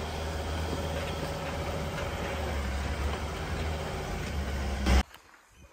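Steady low rumble of a four-wheel-drive vehicle driving along a dirt track, heard through an open side window, with engine and tyre noise. It cuts off suddenly about five seconds in, leaving faint quiet outdoor background.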